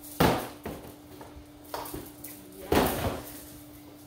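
Boxed toy packaging being handled and set down: two loud knocks about two and a half seconds apart, with smaller knocks and rustling of the boxes between, over a faint steady hum.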